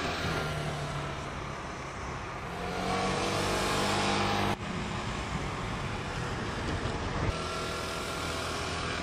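Motor vehicle engine running in street traffic, a steady low hum that grows louder until it cuts off abruptly about halfway through, then carries on at a steady level.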